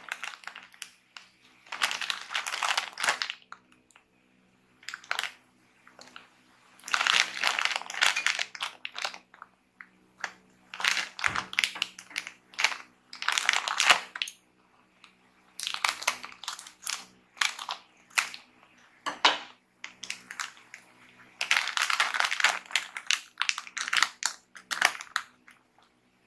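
A foil-lined plastic snack packet of Nissin Bread Stix crinkling as it is handled and squeezed, in repeated loud bursts with short pauses between. Partway through it is cut open with scissors.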